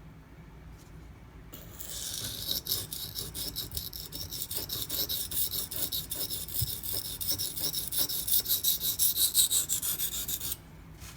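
A 240-grit silicon carbide sharpening stone rasping along the edge of a Maxamet steel knife blade in rapid, even back-and-forth strokes: coarse-grit grinding of the bevel. It starts about a second and a half in and stops abruptly shortly before the end.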